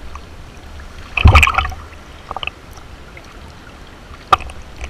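Sea water lapping and sloshing against a GoPro's waterproof housing held at the surface, with a steady low rumble. There is one louder splash about a second in and a single sharp tap near the end.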